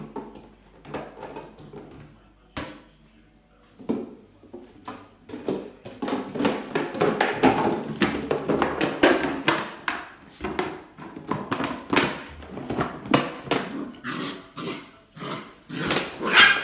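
Empty plastic water bottle crackling and clattering on a tile floor as a puppy bites and pushes it around: irregular clicks and crunches, sparse at first and busy from about six seconds in.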